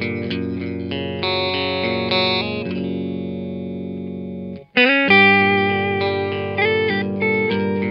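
Agile eight-string electric guitar played on a clean tone: picked chords and arpeggiated notes, with one chord left ringing and fading for about two seconds. A brief break comes about four and a half seconds in, then playing resumes with notes gliding up in pitch.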